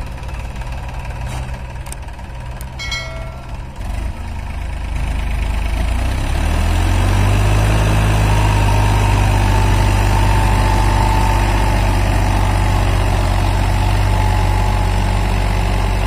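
New Holland 3600 Plus tractor's three-cylinder diesel engine running at low revs, then revving up from about four seconds in and holding at high revs. It is straining under heavy load, trying to pull a loaded earth trolley out of soft, sandy ground.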